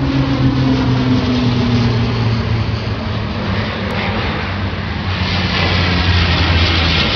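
Jet airliner engines running in flight: a steady rushing rumble over a low hum. A tone in the hum slides slowly down in pitch over the first two seconds, and the rumble grows heavier about five seconds in.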